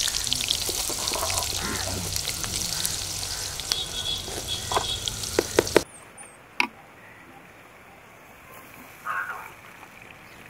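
Sliced onions frying in hot oil in a large metal kadai: a steady loud sizzling hiss, with a few sharp clicks of the steel ladle against the pan just before it stops. About six seconds in the sizzling cuts off, leaving a quiet outdoor background.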